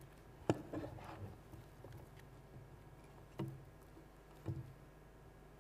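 Room hum with a sharp click about half a second in, then two soft knocks about three and a half and four and a half seconds in: handling noise as a presenter settles at the microphone.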